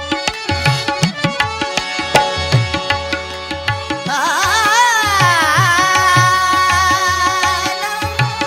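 Sufi folk music between sung lines: a hand drum keeps a steady beat under held melodic tones, and about four seconds in a long wavering melodic line with heavy vibrato comes in and glides downward.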